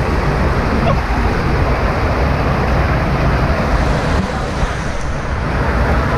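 Steady rushing of river water with wind rumbling on the action camera's microphone.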